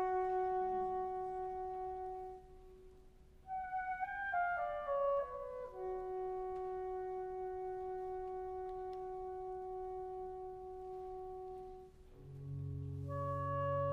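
Solo soprano saxophone: a held note fades away, then after a short pause a quick falling run leads into a long sustained note. Near the end, low sustained organ chords come in under it.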